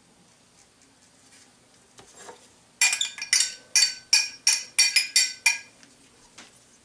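A metal spoon tapping and scraping against a clear glass measuring cup, knocking out the last of the olive oil and herbs. There are about eight quick, ringing clinks, about three a second, starting nearly three seconds in.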